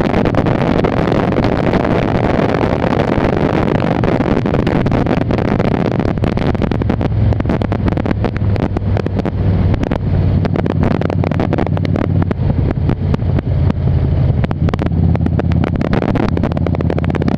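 2002 Harley-Davidson Ultra Classic's V-twin engine running steadily at road speed, with wind buffeting the microphone, heaviest in the first several seconds.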